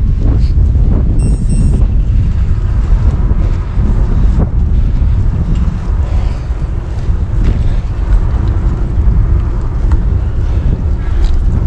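Wind buffeting the microphone while riding, a steady loud rumble with vehicle noise underneath. A short high beep sounds about a second in.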